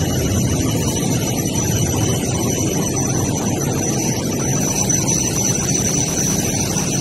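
MTR Light Rail vehicles standing at a platform, their air-conditioning and auxiliary equipment running with a steady hum, and a thin, steady high-pitched whine over it.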